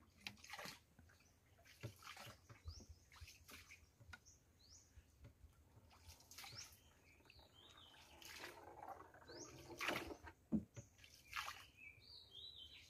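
Faint birdsong in the forest: scattered short high chirps, with a few soft clicks and water splashes in between.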